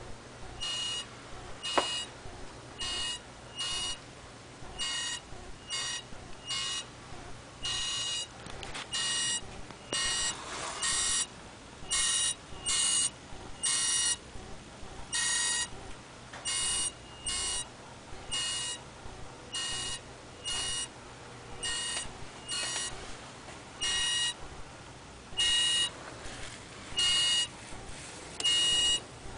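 Grinding buzz from the engine of a 2005 BMW 545i sitting switched off: short, high, buzzing bursts of about half a second each repeat at uneven intervals, about one a second. A single sharp click comes about two seconds in.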